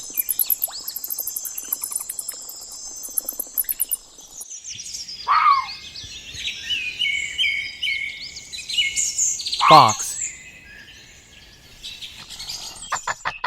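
Bats calling. Rapid high-pitched clicks and thin steady tones come first, then after about four seconds a dense chatter of short squeaks and chirps.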